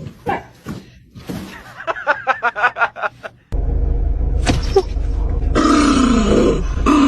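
A drowsy dog's vocal sounds: a quick run of short grunts, then a long wavering groan that slides down in pitch over a loud low rumble.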